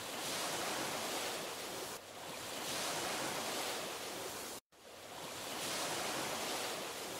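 Ocean surf: a steady rush of waves that swells and eases every two seconds or so, with a brief cut to silence about two-thirds of the way through.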